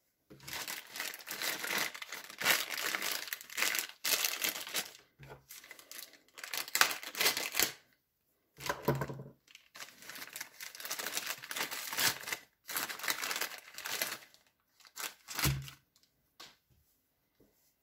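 A crumpled plastic shipping bag crinkling and tearing as it is handled and torn open by hand, in long stretches of rustling broken by short pauses. It dies away shortly before the end.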